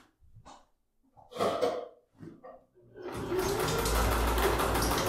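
Domestic electric sewing machine starting about three seconds in and then running steadily at an even, fast stitching rhythm, sewing a seam across the boxed corner of a fabric bag.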